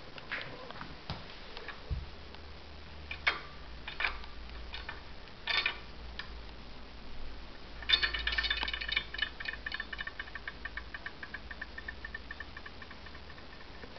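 Knocks and clicks as the valve of a medical oxygen cylinder is handled. About eight seconds in the valve is opened: a sudden burst, then a rapid rattling buzz that slows and fades over about three seconds as the regulator and its gauge come up to pressure.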